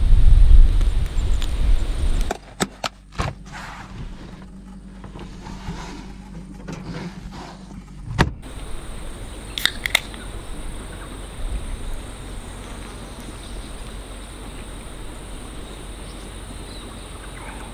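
Wind buffeting the microphone in a low rumble for the first two seconds. Then close-up clicks and clunks of a portable car fridge's lid and cans being lifted out of its wire basket, and about ten seconds in the short double crack of a beer can being opened, over a steady high insect buzz.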